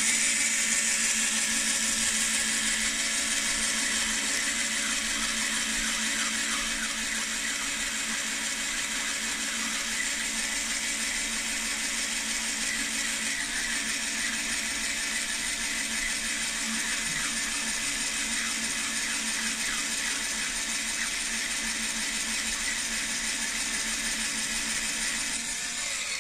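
Battery drill running steadily, spinning a power-tool motor armature while a hand file scrapes its copper commutator, a steady motor whine with a rasping scrape; the file is cleaning corrosion and carbon-brush tracks off the commutator. It starts at once and cuts off shortly before the end.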